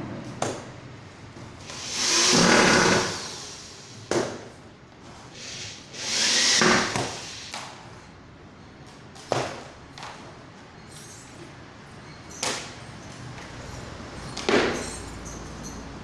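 Hands-on assembly of a laminated-wood single bed frame: several sharp knocks and taps of panels and fittings, and two longer noisy sounds of about a second each, about two and six seconds in.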